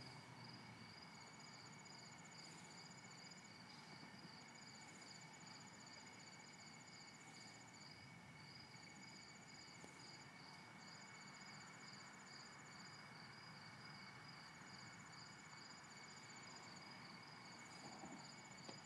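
Faint chorus of crickets and other night insects chirping steadily. One keeps up an even pulsing chirp about three times a second, while another trills higher in stretches of a couple of seconds at a time.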